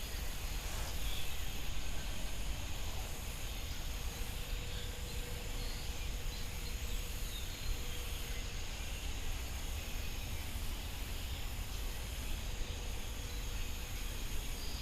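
Outdoor ambience of steady insect chirring, with a continuous low rumble underneath.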